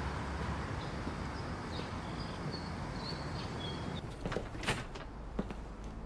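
Street ambience: a steady low rumble of distant traffic, with faint short high-pitched chirps early on and a few sharp clicks about four to five seconds in.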